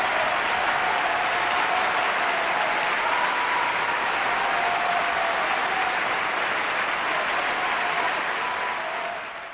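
Applause sound effect: a crowd clapping steadily, fading out at the very end.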